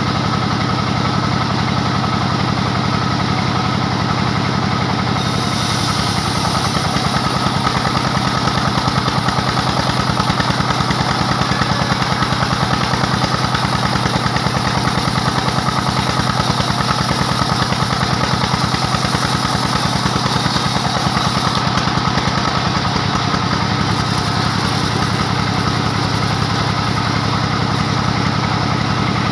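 Diesel engine driving a sawmill, running steadily with a fast even beat. A hissing rasp joins about five seconds in and fades around twenty-two seconds, then returns briefly near the end: the saw blade cutting through a dry acacia log.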